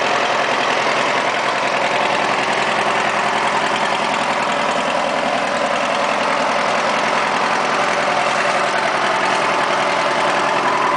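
Tractor engine idling steadily, with an even rapid pulse and no hammer blows.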